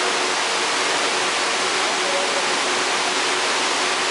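Steady rushing of running or splashing water: an even, constant hiss with no breaks.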